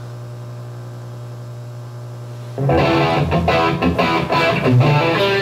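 Steady hum from an FM radio tuned to a low-power FM transmitter that has no ground, then guitar music playing through the radio, starting about halfway through.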